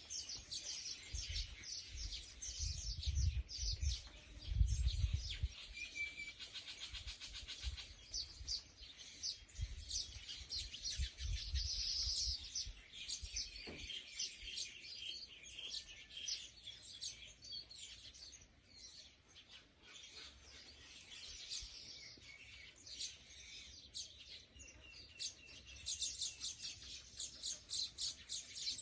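Small birds chirping and twittering in a rapid, continuous stream of short high notes, with a low rumble in the first few seconds.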